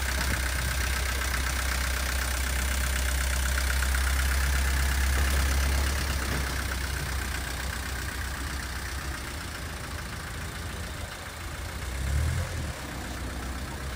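The 1926 Haynes fire truck's engine idling steadily, louder for the first six seconds, then softer, with a brief swell about twelve seconds in.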